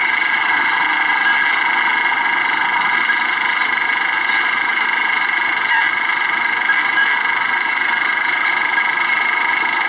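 Steady driving noise of a car, engine and tyres on the road heard from inside the cabin, with a constant high whine running through it.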